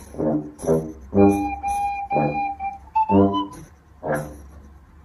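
Background music with a steady beat, about two pulses a second, under a held high melody line.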